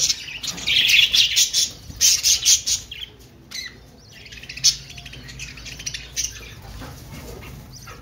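A flock of budgerigars chirping, dense and busy for the first few seconds, then sparser and quieter; a brief flutter of wings near the start.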